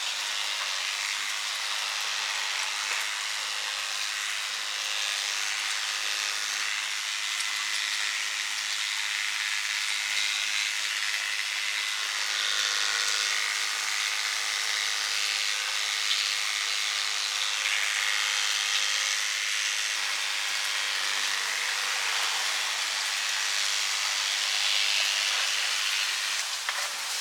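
Electric hair clippers running steadily while cutting a dog's hair.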